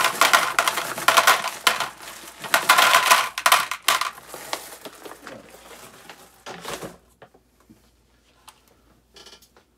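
Small metal reloading components clinking and rattling as they are rummaged through and handled. The rattling stops about seven seconds in, leaving a few soft clicks.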